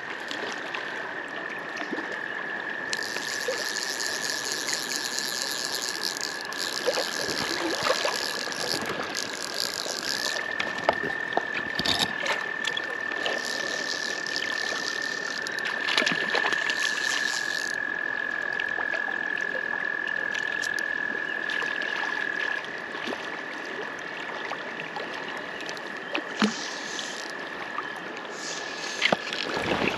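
Frogs trilling: one long, steady, high trill that steps slightly up in pitch about ten seconds in, over the rush of creek water. A second, higher buzzing call joins twice for several seconds.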